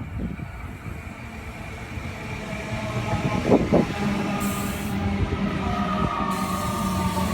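Sydney Trains M-set (Millennium) electric train pulling into the platform, slowing. Wheels and running gear rumble under a steady electric whine that sinks slightly in pitch, with a short squeal about three and a half seconds in and hiss near the end.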